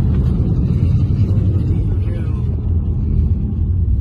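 Steady low rumble of road and wind noise from a moving car, heard from inside its cabin.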